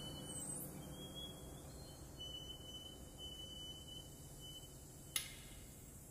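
Quiet passage of contemporary chamber-ensemble music played with extended techniques: a thin, high held tone broken into several sustained notes over a faint low hum that slowly dies away. About five seconds in there is a single sharp click with a brief ring.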